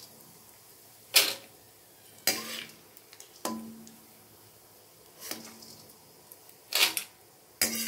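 Steel ladle scraping and clinking against a steel kadai as fried chana dal and dried red chillies are scooped out of the oil. There are about six separate scrapes, a second or so apart, and the first is the loudest.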